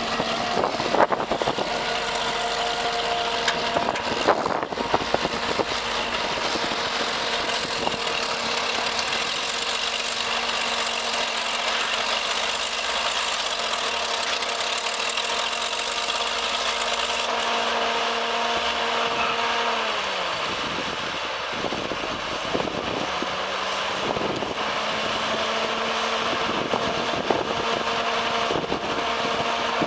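Heavy construction machine's engine running under load, with a few knocks and clanks. About two-thirds of the way through the engine speed drops, then it picks back up a few seconds later.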